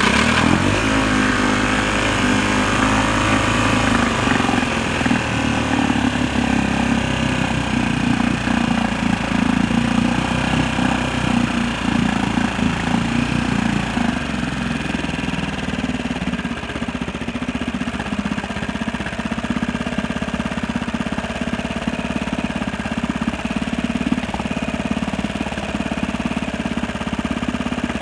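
1962 Montgomery Ward Sea King 3 HP single-cylinder two-stroke outboard motor catching on a pull start, speeding up over the first few seconds, then running steadily. Its float needle is not seating and keeps letting fuel through, which the owner expects to make it choke out at full speed.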